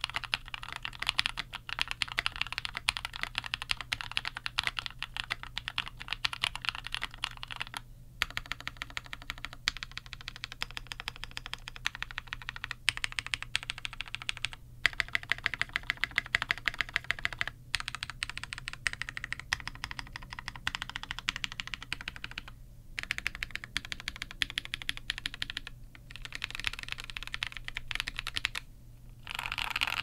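Melody 65 top-mount mechanical keyboard with a polycarbonate plate, lubed Ruby switches and GMK keycaps: steady typing. About eight seconds in it changes to runs of repeated presses on the big modifier keys (space, enter, shift, backspace) on lubed Durock stabilizers, broken by short pauses. Near the end comes fast spamming of the letter keys.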